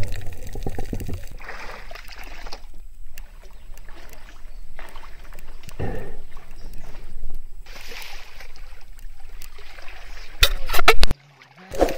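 A low underwater rumble, then water splashing and lapping around a camera held at the surface by a swimming diver, coming in irregular bursts. Near the end there are a few sharp knocks, and the sound cuts out briefly.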